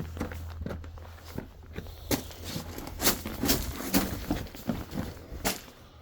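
Footsteps on loose seaside rocks: irregular crunches and sharp clacks of stones knocking together underfoot.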